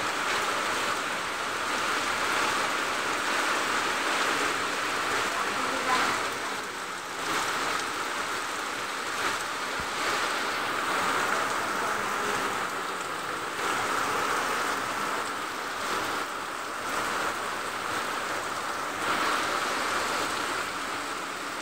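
Heavy tropical rain pouring down, a dense, steady hiss that swells slightly now and then.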